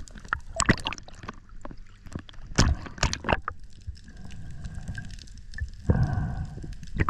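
Underwater sound picked up by a diver's camera: gurgling, sloshing water broken by irregular sharp clicks and knocks.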